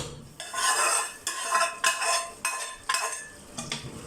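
A metal spoon scraping and stirring in a cooking pot, seven or eight strokes about every half second, as fried onions go into the pot.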